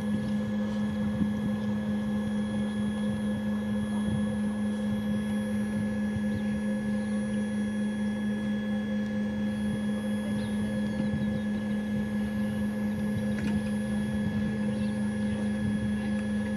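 Steady machine hum with a constant high whine from the ground power unit plugged into a parked Dash 8-300, before engine start with the propellers not yet turning.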